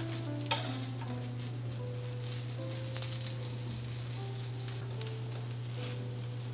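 Omelette sizzling in oil on a hot tawa, a steady frying hiss, with a few brief scrapes of the spatula against the pan as the omelette is folded over.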